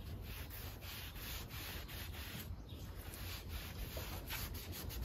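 A cloth rubbing back and forth in repeated strokes over the painted tailgate panel of a VW Golf Mk2's licence-plate recess, wiping the surface dry after an alcohol clean.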